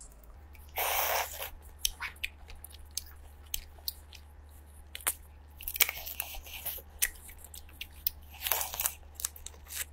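Crawfish shells cracking and crunching as they are peeled by hand, mixed with close-miked biting and chewing: scattered sharp clicks with a few louder crunches, one about a second in and others later.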